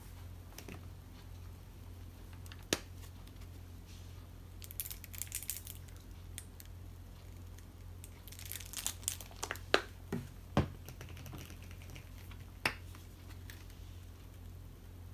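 Plastic soy sauce bottle being handled and poured into a ceramic dish on a wooden table: a sharp click about three seconds in, a patch of plastic crinkling around five seconds, and a run of clicks and knocks from bottle and cap a little past the middle, over a low steady hum.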